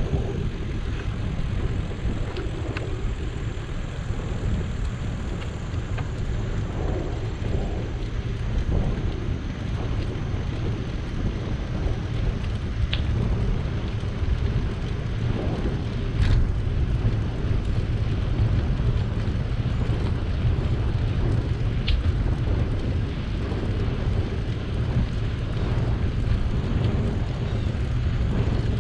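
Wind rumbling on the microphone of a camera riding on a moving bicycle: a steady low rumble, with a few faint clicks scattered through it.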